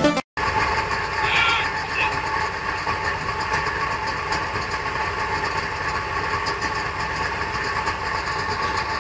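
Mining haul truck's engine running steadily, a constant high whine over a low rumble, with a brief higher sound about a second and a half in.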